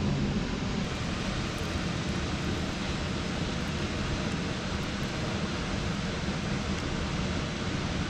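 Steady rushing of a fast-flowing river, an even noise with no breaks.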